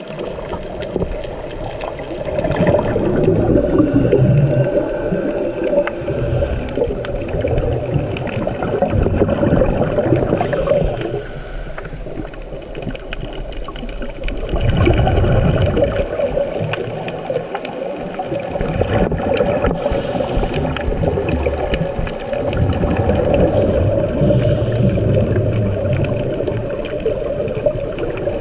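Scuba breathing heard underwater through the camera housing: regulator breaths and exhaled bubbles gurgling and rumbling, swelling and fading every few seconds.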